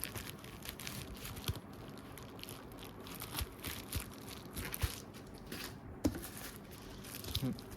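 Irregular crinkling and rustling of packaging with small clicks and knocks, as phone parts are handled and taken out of a box.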